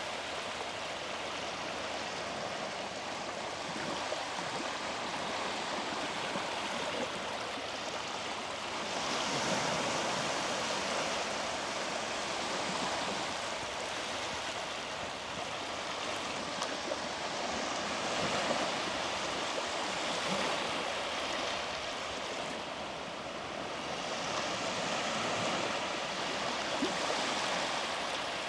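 Sea waves breaking and washing up a beach: a continuous hiss of surf that swells every eight seconds or so as each wave comes in.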